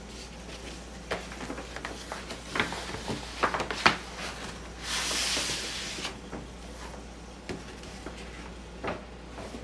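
Large manila paper envelope being handled and opened: paper rustling and crinkling, with a few sharp crackles and a longer sliding rustle about halfway through.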